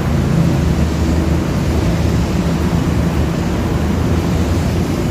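Steady roar of city traffic on a busy road, with a low engine hum underneath.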